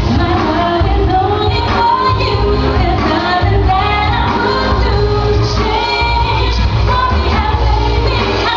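A woman singing an R&B song live into a microphone over amplified backing music with a strong bass.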